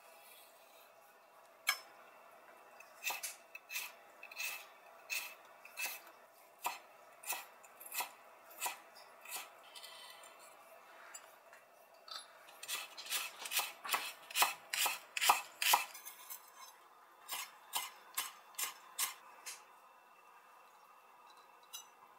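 Kitchen knife slicing myoga (Japanese ginger) on a wooden cutting board: a run of sharp knocks as the blade meets the board. The knocks come about two a second, speed up to about four a second in the middle, then slow again for a few more strokes.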